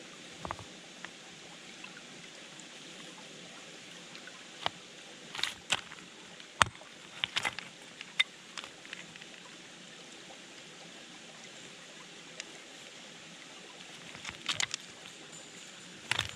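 Rock slabs being struck with a small hammer and split apart by hand: scattered sharp clinks and knocks of stone on stone, the loudest a single crack about six and a half seconds in. A steady babbling stream runs underneath.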